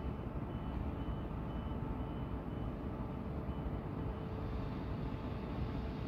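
Steady low rumble of a nearby vehicle engine, with a truck's reversing alarm giving short high beeps about twice a second that stop about four seconds in.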